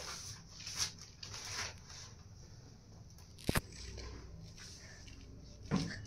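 Faint rustling and handling noises, with a sharp double click about three and a half seconds in.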